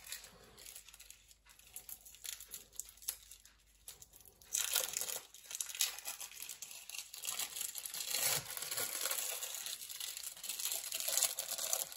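Plastic cheese wrapping being crinkled and pulled open: a few faint crackles at first, then dense, continuous crinkling from about four and a half seconds in.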